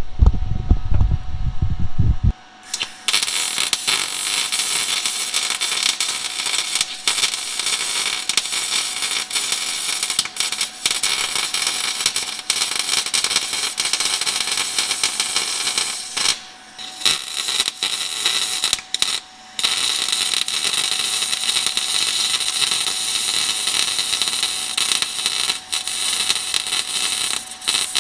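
MIG welding arc from a Harbor Freight Titanium Unlimited 200 on C25 argon shielding gas, joining steel exhaust pipe: a steady crackling hiss in long runs, broken by short pauses about 16 and 19 seconds in and again near the end. A low rumble fills the first two seconds before the arc strikes.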